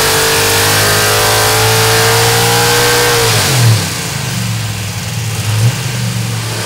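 Chevy V8 race engine on an engine dynamometer making a full-load power pull, its pitch climbing steadily with rpm, then the throttle is closed about three and a half seconds in and it drops to a lower, rougher running.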